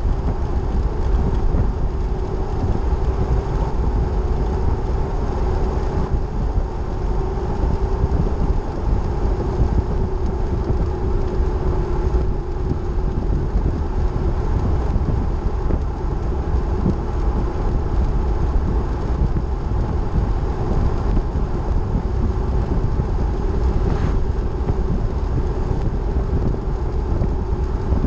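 Vehicle driving at highway speed on pavement: a steady drone of engine and tyre noise.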